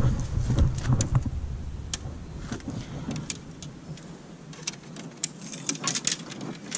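Low wind rumble on the microphone that eases off about three seconds in, then a run of light clicks and knocks as fishing rods and reels are handled.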